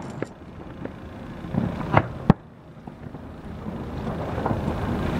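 Fireworks exploding in the distance: a few sharp bangs, the loudest a pair about two seconds in. Under them runs a steady low rumble that drops off after the loudest bang and slowly builds again.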